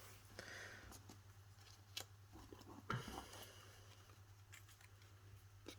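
Near silence: a quiet room with a steady low hum, broken by a few faint taps and rustles of paper and card being handled on a craft desk.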